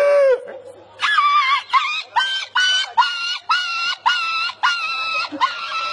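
A man on all fours making dog-like cries into a handheld microphone: one longer, lower cry, then from about a second in a rapid run of about a dozen short, high-pitched yelps at two or three a second.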